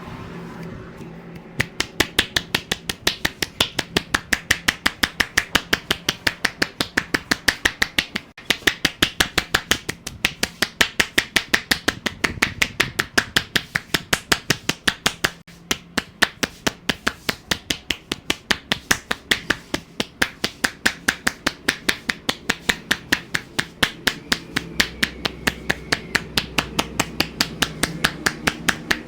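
A barber's hands striking rapidly and evenly during a percussive Indian head massage, sharp claps at about five a second, with two short pauses.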